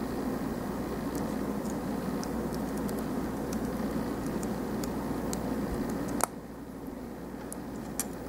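Small plastic model-kit parts handled and pressed together: faint light clicks over a steady low background noise, with one sharper plastic snap about six seconds in, after which the background is a little quieter.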